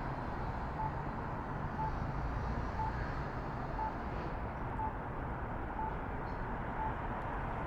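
A short, high electronic beep repeating about once a second, over a steady low rumble of street traffic and wind.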